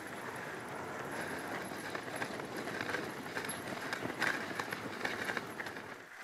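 Greenlandic dog sled running over snow and ice, heard from on the sled: a steady scraping rush from the runners with many small clicks and knocks from the sled and the trotting dog team.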